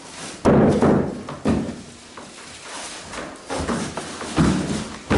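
Thuds and slaps of grappling bodies hitting interlocking foam floor mats, about six heavy impacts at irregular intervals, the loudest about half a second in.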